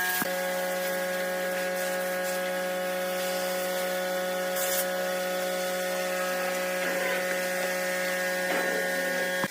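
An electric motor running at a steady speed: a steady hum made of several held tones, which shift slightly just after the start.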